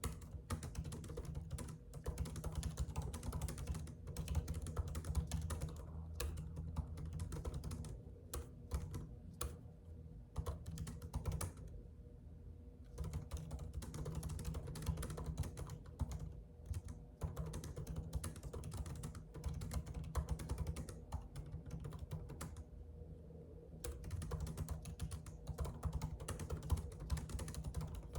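Typing on a computer keyboard: a fast, dense run of key clicks, broken by brief pauses a little before the middle and about four-fifths of the way through.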